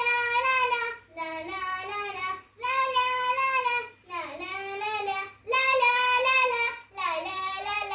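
A young girl singing a song unaccompanied, in held phrases of about a second and a half with short breaths between them.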